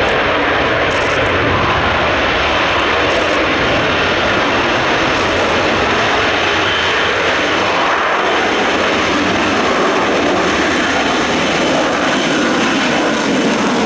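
Steady, loud jet noise from an F-35B Lightning II's Pratt & Whitney F135 engine and shaft-driven lift fan in STOVL (hover/slow-flight) mode, with the lift-fan doors open.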